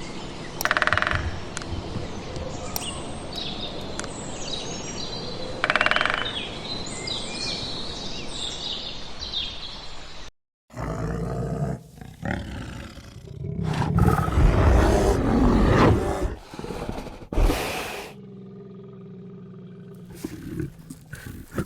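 Animal calls in two separate clips; after a brief silent break about halfway, a big cat growls and roars loudly for a few seconds, followed by a quieter stretch.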